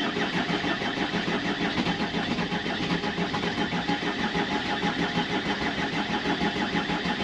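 Mercedes W201 190D diesel engine running at idle right after starting, with a steady, even pulsing. It is running on the refitted old fuel filter, now getting fuel again.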